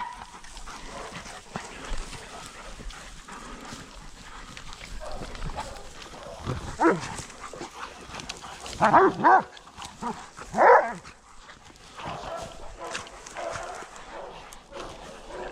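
Hunting dogs barking during a boar drive: a few loud barks come about seven, nine and eleven seconds in, over fainter barking in the background.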